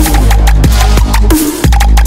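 Background music with a heavy, sustained bass line and a fast, driving beat of sharp drum hits.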